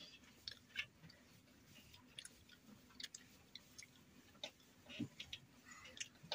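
Faint chewing, with scattered soft mouth and lip clicks, of people eating a meal of mutton curry and luchi.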